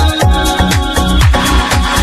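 Background music with a steady electronic dance beat: a kick drum about twice a second, hi-hats above it, and sustained synth chords.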